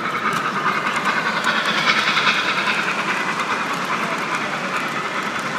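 Model freight train cars rolling past on the layout track: a steady rolling sound of wheels on rails with faint clicks. It swells to its loudest about two seconds in, then eases off.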